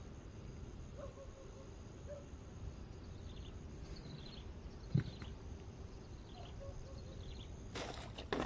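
Faint short bird chirps over a low steady outdoor background, with a single dull knock about five seconds in and a brief rush of noise near the end.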